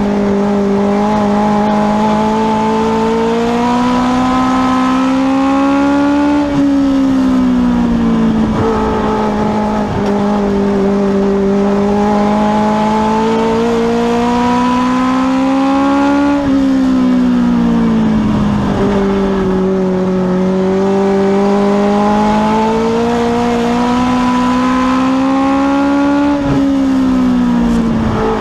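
Legends race car's motorcycle engine heard from inside the cockpit, running at racing speed on a dirt oval. The engine note climbs gradually along each straight, then falls quickly as the driver lifts for the corner, three times about ten seconds apart.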